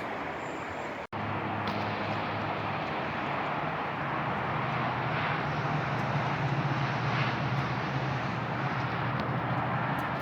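Steady outdoor noise with a low engine hum underneath, typical of traffic, broken by a brief dropout about a second in.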